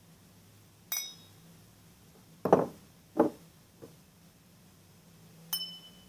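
Cut-crystal glasses clinked together: a sharp clink about a second in with a short, high, clear ring. Then come two louder dull knocks and a faint third as glasses are set down on a hard surface. Near the end a second pair of crystal glasses is clinked, ringing with a clear tone.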